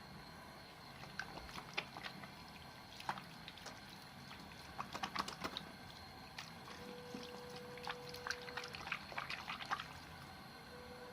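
Wet soap bits stuck together being lathered, giving irregular wet squishing and crackling clicks. A faint steady tone sounds briefly twice in the background.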